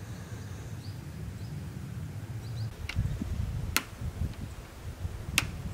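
Outdoor ambience: a steady low rumble with a few faint bird chirps, broken by three sharp clicks or knocks about three, three and three-quarter and five and a half seconds in, the last the loudest.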